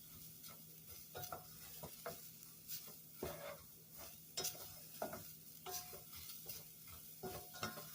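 Chopped leek sautéing in canola oil with a faint sizzle, while a utensil scrapes and stirs it in the pot in short strokes about once a second.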